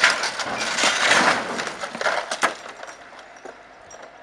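A wrecked SUV falling from a crane truck's lift onto the truck's deck and tipping off onto the road: a long crunch and scrape of metal with several sharp knocks, dying down after about two and a half seconds.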